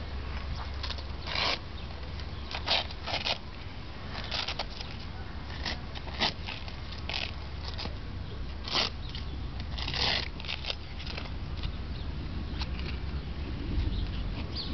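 Hook-and-loop fastener straps of a horse's knee wrap being pulled open, about a dozen short tearing rips as the wrap is peeled off the leg, the longest around ten seconds in. A steady low rumble runs underneath.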